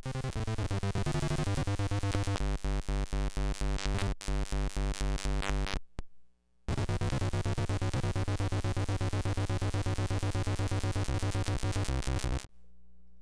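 Electric guitar played through a hand-built circuit-bent noise and octave pedal, giving rapid, evenly stuttering synth-like tones with low stepping pitches. It cuts out briefly about six seconds in, resumes, then stops near the end, leaving a steady low hum.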